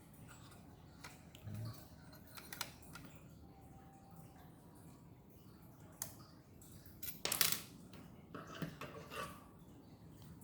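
Scattered small clicks and taps of laptop parts and a small screwdriver being handled during an HDD-to-SSD swap, with a louder short rattle of clicks about seven seconds in.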